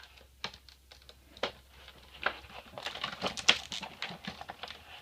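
Tape being picked at and pulled off packaging by hand, making irregular light clicks and crackles that come thickest in the second half.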